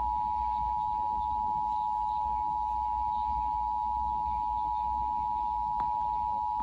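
Emergency alert attention tone: a loud, steady electronic tone held without a break, over a low hum, with a faint click about six seconds in. It is the alarm that comes just before an alert's spoken message, here a special marine warning.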